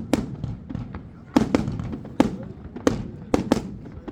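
New Year's Eve fireworks and firecrackers going off: about seven sharp bangs at uneven intervals, some in quick pairs, over a continuous low rumble and crackle of more distant bangs.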